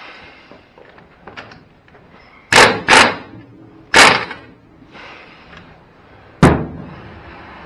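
Pneumatic impact wrench hammering on a rear axle hub nut to loosen it for removing the brake drum: three short, loud bursts between about two and a half and four seconds in, then a single sharp knock about two seconds later.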